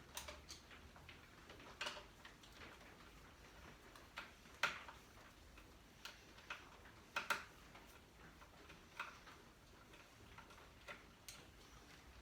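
Irregular small clicks and taps from a screwdriver working at a motorcycle's battery terminals as the battery is disconnected, the sharpest about a third of the way in and again past the middle.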